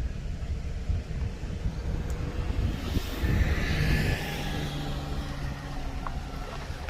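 A motor vehicle passing, swelling and fading about halfway through, over a heavy low rumble of wind on the microphone.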